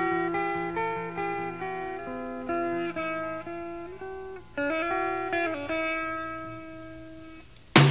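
Music: a plucked guitar playing a melody of ringing single notes. A loud drum hit comes in right at the end.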